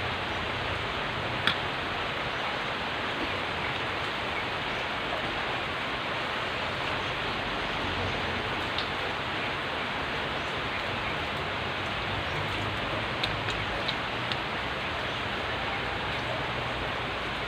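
Steady hissing noise, like rain or a fan, with a few faint clicks, one about a second and a half in and several more near the end.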